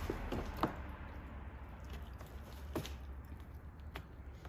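Plastic door trim panel being lifted and shifted on the door: a few light knocks and clicks, the sharpest about half a second in, over a steady low hum.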